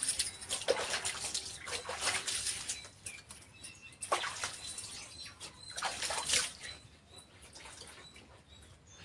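Wet hands scrubbing and rubbing soap over wet legs, with irregular splashes and rubs of water that fade off near the end.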